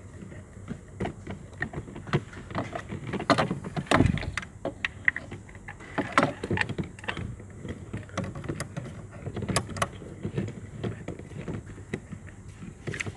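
Irregular clicks, taps and metal clinks of hand tools and fittings being handled, as a compression tester is unscrewed from one spark plug hole and fitted into the next cylinder of a V8 engine.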